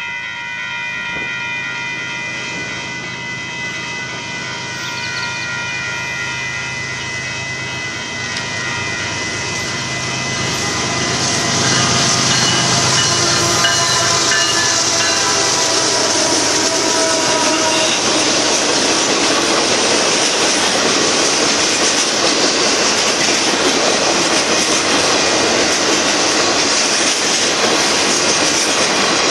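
Union Pacific diesel freight train at a grade crossing: the crossing bell rings over the growing hum of the approaching locomotives. From about eleven seconds in, the louder, steady rumble and clatter of boxcars and auto racks rolling past takes over.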